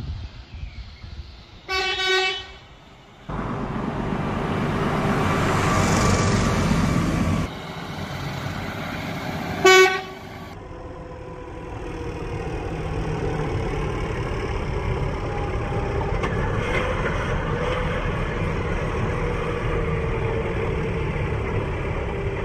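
Mercedes-Benz semi tractor unit sounding its horn in two short blasts, about 2 seconds in and again near 10 seconds, the second one louder. Around and after the blasts its diesel engine runs steadily as the truck drives past.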